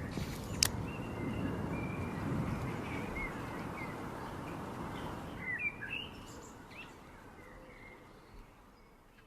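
Small birds chirping now and then over a steady background rumble, with a single sharp click just under a second in. The background fades away gradually toward the end.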